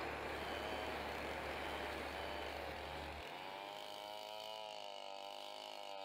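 Stihl two-stroke chainsaw running as it cuts into a felled coconut palm trunk. Its engine pitch wavers up and down. About three seconds in, the rougher noise drops away and a clearer wavering engine tone remains.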